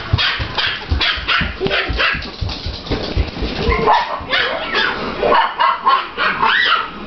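Puppies yipping and barking in quick, short cries, with rising and falling yelps in the second half.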